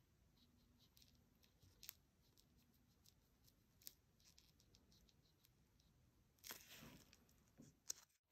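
Near silence with a few faint clicks and a short rustle near the end: light handling noises from a nail brush and gloved hands working builder gel onto a plastic nail tip.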